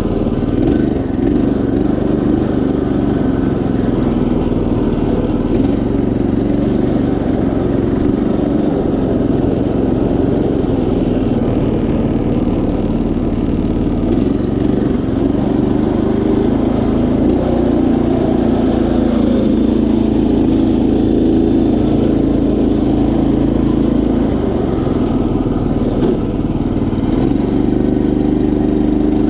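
Predator 212cc single-cylinder four-stroke engine on a Craftsman GT5000 riding mower, running steadily as the mower is driven along.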